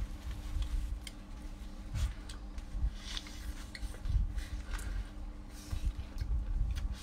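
Two people rolling up thin flatbreads around scallions and eating them: soft crackling of the bread, short clicks of bites and chewing, and uneven low thumps from handling. A steady low hum runs underneath.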